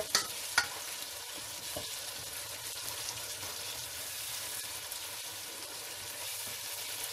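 Tomato and spice masala sizzling steadily as it fries in a pot, a spoon stirring it with a couple of clicks against the pot in the first second.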